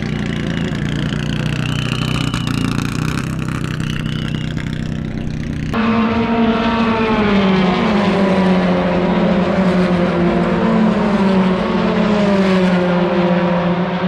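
Engine of a vintage open-wheel racing car running steadily at low revs in the pit lane. About six seconds in it switches to a louder racing car engine at high revs on the circuit, its pitch falling as the car passes by and then wavering.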